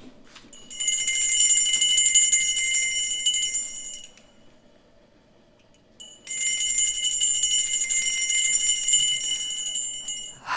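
Old-style telephone bell ringing: two long rings with a pause of about two seconds between them.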